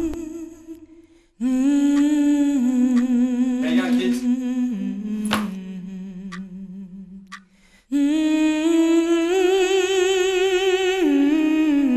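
Soundtrack music: a wordless humming voice holds long notes in two slow phrases, stepping down in pitch and wavering in the second phrase. A single sharp click comes about halfway through.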